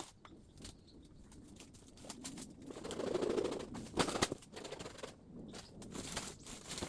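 Bamboo and dry leaves rustling and clicking as bamboo is handled, with a louder dull thud about three seconds in and a few sharp knocks of bamboo about a second later.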